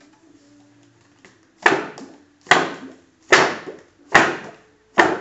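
RGZ carbon-fibre spearfishing fin blade, the softest, most flexible stiffness, flapped hard through the air five times, about one stroke every 0.8 seconds. Each stroke is a sharp slap fading into a short whoosh as the flexible tip whips back.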